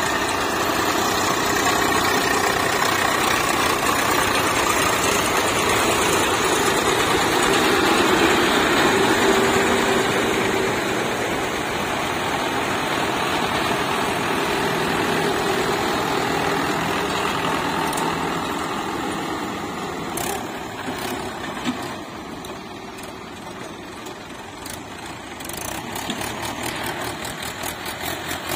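Diesel tractor engine running hard, loudest in the first ten seconds or so and easing off after about twenty seconds, with a few sharp clicks near the end.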